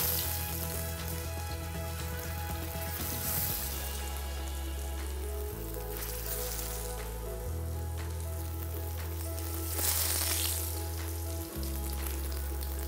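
Gram-flour masala-coated raw banana slices sizzling in medium-hot oil in a frying pan as they are laid in one by one, the sizzle flaring up several times. Low background music plays underneath.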